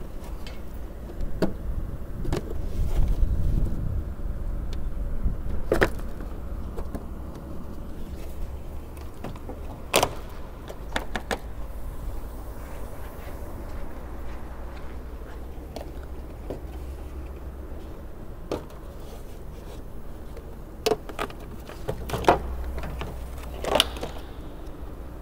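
Plastic windshield cowl panel being pried off, its retaining clips letting go with scattered sharp clicks and knocks over a low steady hum.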